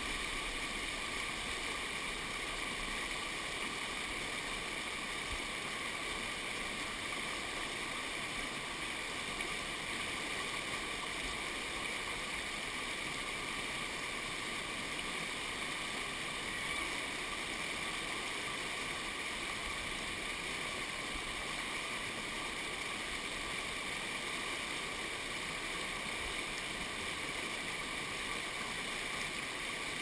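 Mountain stream rushing over rocks in a small whitewater cascade, a steady, unchanging rush of water close to the microphone.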